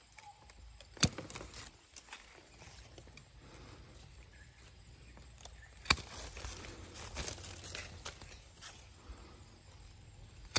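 Hand-held bypass pruning shears snipping through durian twigs: three sharp snips, about five seconds apart, with light rustling of leaves and branches between the second and third.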